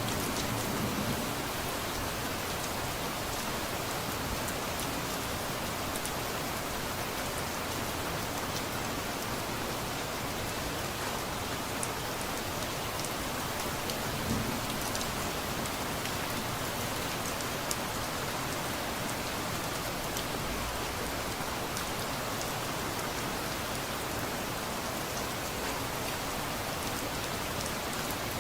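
Steady rain falling and pattering on surfaces, with many small drop ticks through it.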